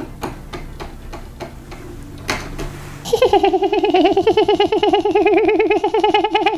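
A few light clicks and taps, then from about three seconds in a long, high, giggle-like voice warbling rapidly on one pitch.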